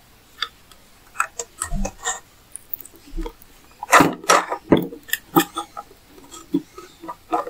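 Scattered small clicks, taps and rustles of hands handling a plastic mini portable sewing machine and pulling thick thread through its thread guides, busiest and loudest about four to five seconds in.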